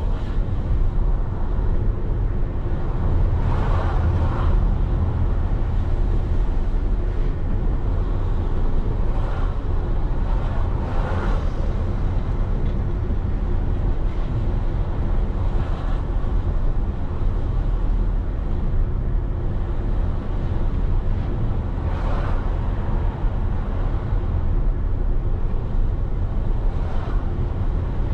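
Road noise from a vehicle travelling through city streets: a steady low rumble, with brief swells of louder noise now and then.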